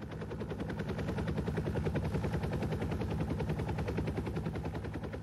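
A person imitating a helicopter with their voice: a fast, even chopping pulse over a steady low hum.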